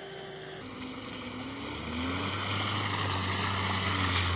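Mahindra Thar's engine pulling it through muddy ruts in four-wheel drive, revving up about two seconds in and again near the end, and getting louder as it approaches.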